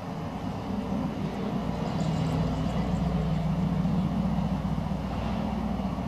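Low engine drone of a passing motor vehicle, growing louder over the first few seconds and easing off slightly near the end.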